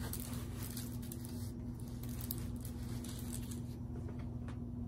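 Faint, occasional rustle of a diamond painting canvas being handled and smoothed, over a steady low hum.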